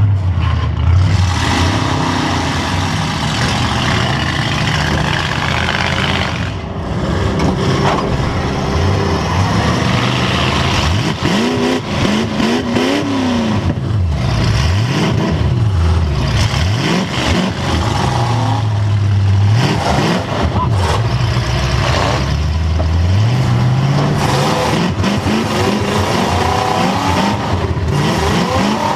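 Demolition derby car's engine revving up and down over and over, heard from inside the car, with frequent knocks and bangs.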